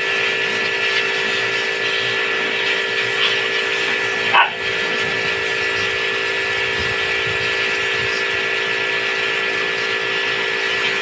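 Pressure washer running steadily: a constant motor hum with a hiss of water spray, cutting off at the end. A dog gives a short yelp about four seconds in.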